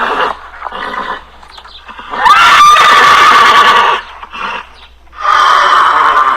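Farm animal giving loud, drawn-out high calls, two long ones each lasting about one and a half to two seconds, the first rising in pitch and then held steady, with shorter, quieter calls between them.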